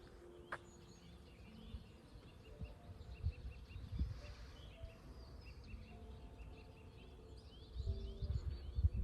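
Small birds chirping, many short repeated calls through the whole stretch, with low thumps near the end.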